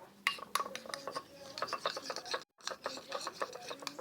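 A spoon stirring and scraping around a container of glue-and-water slime mixture that has foamed and is starting to clump, a quick run of scrapes and clicks with one brief pause a little after halfway.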